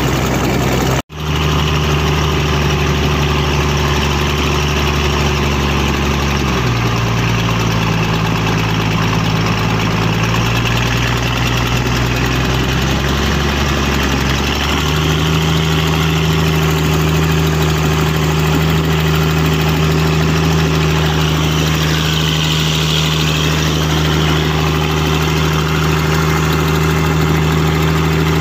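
Mitsubishi 6D16 six-cylinder diesel engine running steadily. Its speed drops about six seconds in, then picks up to a higher steady speed about halfway through. There is a momentary break in the sound about a second in.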